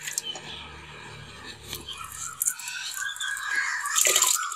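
Washed rice being tipped and scraped by hand from a bowl into a pot of boiling water: soft scraping and splashing of grains into the water, getting louder with a few short clattering scrapes near the end.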